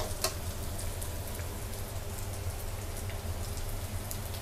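Crispy pork belly and chopped garlic frying in a steel wok with a steady crackling sizzle as the pork renders out more of its fat, with a couple of quick spatula clicks on the wok at the very start.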